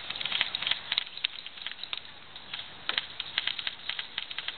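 Airsoft guns firing: irregular clusters of sharp clicking pops, several a second.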